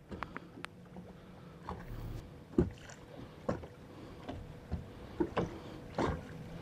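Close handling noises: scattered light clicks and taps as small fishing tackle is worked in the hands, over faint wind and lake water.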